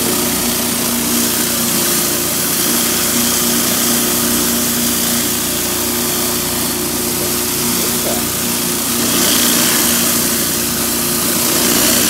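Pressure washer engine running steadily with a hum, under the hiss of high-pressure water from a 16-inch Whisper Wash surface cleaner spinning over concrete. The hiss swells about nine seconds in and again near the end.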